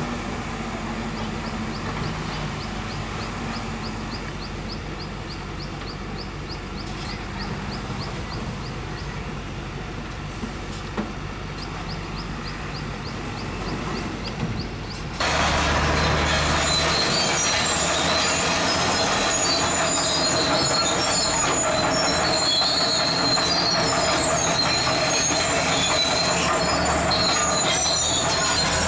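Zoomlion crawler bulldozer's diesel engine running with a light rapid ticking. About halfway through, the sound jumps suddenly louder into clanking and high-pitched squealing of the steel tracks.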